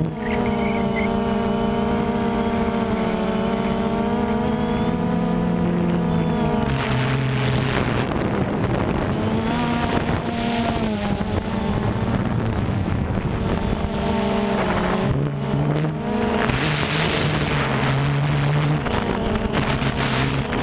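DJI Phantom 2 quadcopter's electric motors and propellers humming in flight, heard from the onboard camera, several close pitches stepping up and down as the motors change speed. Wind rushes over the microphone from about seven seconds in.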